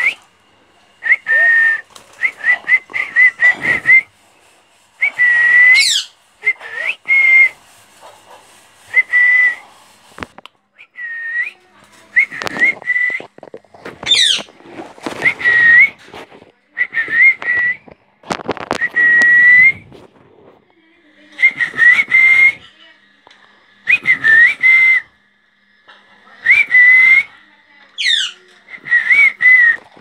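Rose-ringed parakeets whistling in repeated bouts of short, chirpy notes around one pitch, a few of them sweeping quickly up or down, with brief pauses between the bouts.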